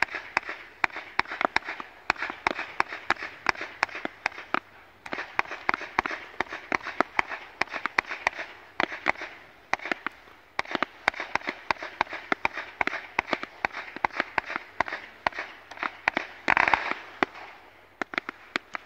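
Ghengis category 4 firework cake firing: a fast, continuous run of sharp cracks and bangs from shots launching and bursting, with short gaps about five and ten seconds in. A dense cluster of bangs comes near the end, then the cracks thin out and stop.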